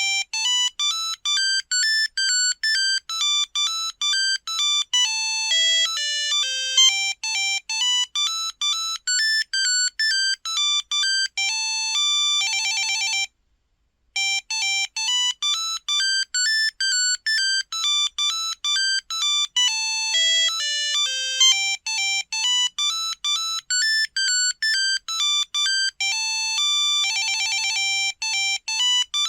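Samsung Anycall SCH-X140 mobile phone playing a monophonic ringtone: a fast single-line beeping melody that breaks off briefly about 13 seconds in and then starts over, each pass ending in a rapid trill.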